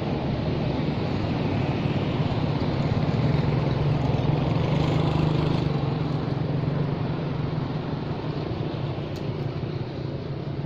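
A motor engine running steadily with a low hum, growing louder toward the middle and then easing off.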